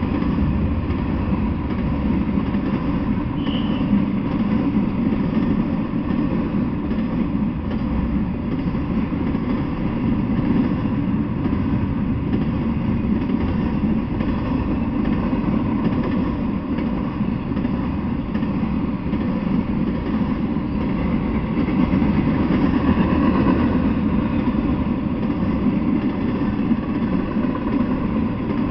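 Intermodal freight train cars, truck trailers on flatcars and stacked containers, rolling past on the rails: a steady, continuous low rumble.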